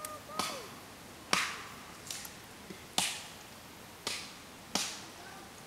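A series of six sharp knocks at uneven intervals of roughly a second, each with a short ringing tail, like something being struck outdoors.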